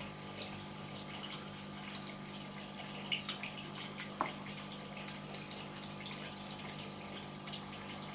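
Steady low hum with a faint, watery-sounding hiss, and a few light clicks of handling about three and four seconds in.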